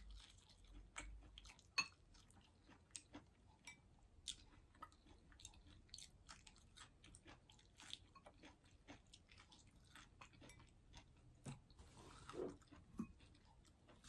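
Close-up, faint chewing and biting of sautéed shishito peppers: many small wet mouth clicks and crunches, with the sharpest bite about two seconds in.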